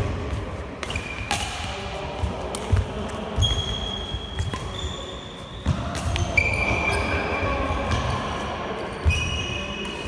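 Badminton rally: several sharp smacks of rackets striking the shuttlecock, with short high squeaks of court shoes on the sports-hall floor and low thuds of running footsteps.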